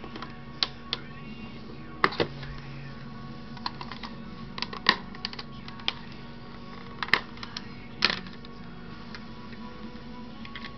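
Irregular sharp clicks and knocks of a Bose CD player's plastic casing being unscrewed, pried apart and handled, over steady background music.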